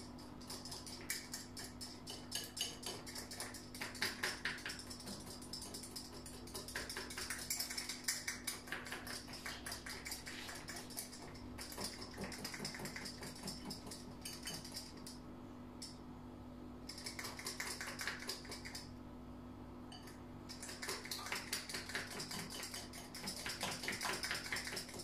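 Whisk beating batter in a bowl by hand: a fast, uneven run of clicks and taps of the wires against the bowl, breaking up lumps. The beating pauses briefly a couple of times past the middle and picks up again.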